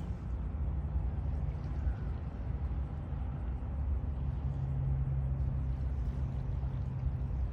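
Watercraft engine running steadily with a low hum and rumble; its pitch shifts slightly about four seconds in.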